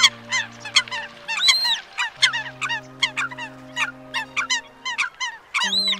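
Eurasian coots calling: a rapid series of short, sharp calls, several a second, with a longer arching call about a second and a half in and another near the end. Steady low tones are held underneath.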